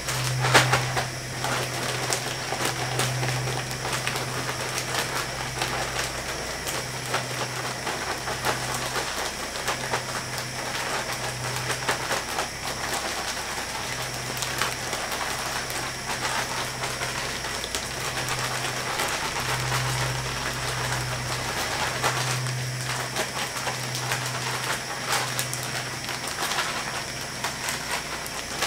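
Hot cooking oil sizzling and crackling steadily in a pot on a propane fryer burner while fries cook, with a low hum that swells and fades underneath.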